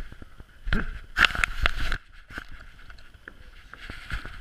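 Clicks, knocks and rubbing from a GoPro camera strapped to a basset hound, jostled as the dog moves. The clicks come thickest between about one and two seconds in, then grow sparser.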